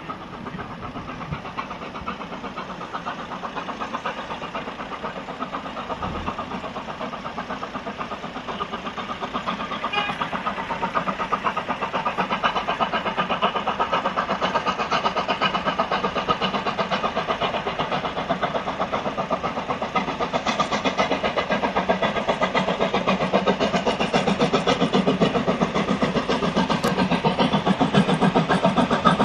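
FS 740.409 steam locomotive, a 2-8-0, chuffing in a quick steady rhythm as it works toward the listener, growing steadily louder as it comes closer.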